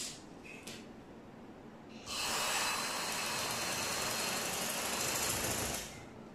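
Black domestic sewing machine with an add-on electric motor running steadily for about four seconds as it stitches a seam, after a couple of short clicks at the start.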